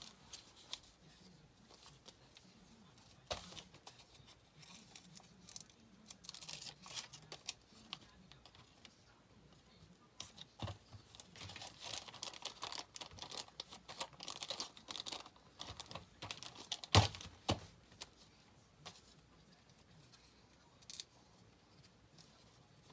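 Small clear plastic zip-lock bag crinkling and rustling as it is handled, with a sticker being peeled and pressed on. Scattered light taps run through it, and one sharp knock comes about three quarters of the way through.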